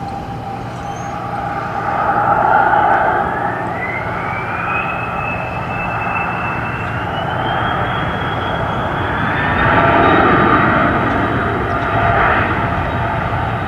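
Airplane engine running, with a high whine that climbs steadily in pitch over several seconds and then holds level, over a steady rumble.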